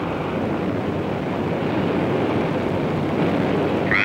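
Steady, even noise of a jet aircraft in flight, with no distinct tones. A brief radio squawk comes near the end.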